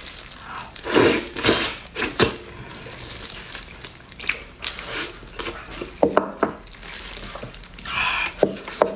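Close-up wet eating sounds of braised pig trotters: sticky lip smacks, sucking and chewing as the gelatinous skin is bitten and torn, in irregular short bursts with small clicks.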